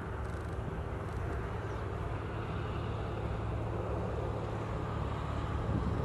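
Steady low engine drone with a constant hum, slowly getting louder.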